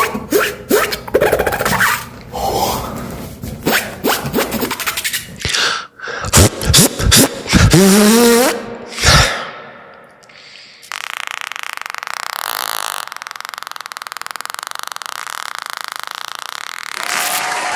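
Beatboxer making mouth sound effects: a quick string of clicks, pops and sliding pitched tones, one rising sharply, then a long steady hissing sound that starts suddenly about eleven seconds in.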